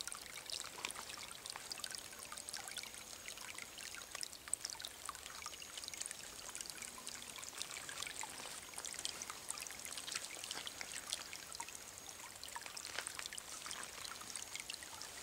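Running water in a stream, trickling and splashing with a steady, high-pitched patter of many small splashes.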